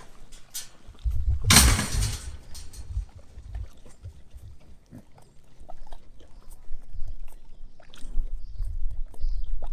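A pig grunting, with a loud noisy burst about a second and a half in. Low rumbling on the microphone comes with that burst and again near the end, and small clicks are scattered throughout.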